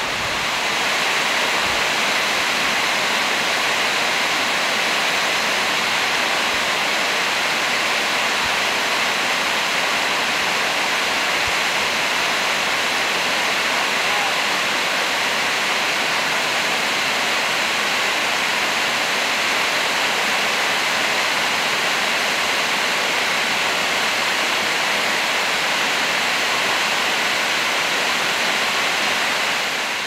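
Mountain stream rushing and splashing over boulders in a steady roar of water.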